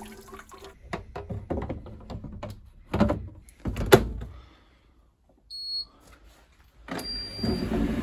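Condensate water emptying from a heat pump tumble dryer's water tank into a stainless steel sink, with splashing and a couple of hard knocks as the tank is handled. After a short quiet gap comes a brief high beep, then the tumble dryer running with a faint high whine.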